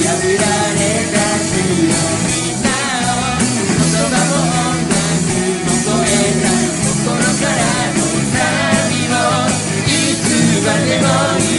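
Live band playing an upbeat rock-style worship song, with electric guitars, bass and a steady beat under a wavering melody line.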